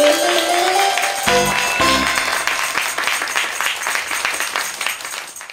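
Bright show-theme music with a rising slide in the first second, under studio audience applause; it fades out at the end.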